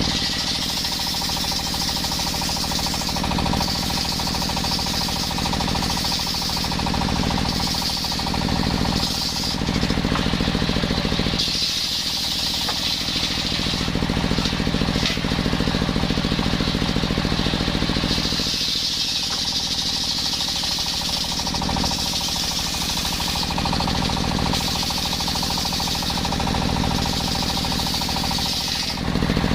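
Machine-driven circular saw running steadily while its blade cuts through coconut wood, the high rasp of the cut rising and falling away every few seconds as pieces are sawn.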